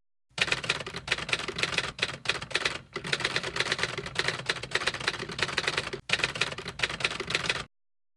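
Typewriter keys typing in a rapid, continuous run of keystrokes with a few brief pauses. The typing stops shortly before the end.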